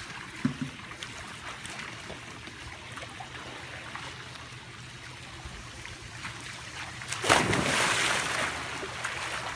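Swimming-pool water lapping and sloshing, with a loud splash about seven seconds in that lasts over a second.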